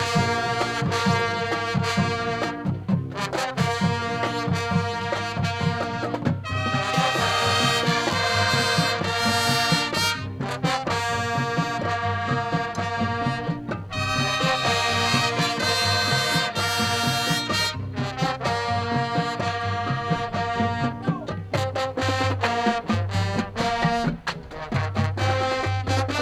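High school marching band playing, brass sections over a steady drumline beat. Loud, full brass chords swell up twice, with short breaks between the passages.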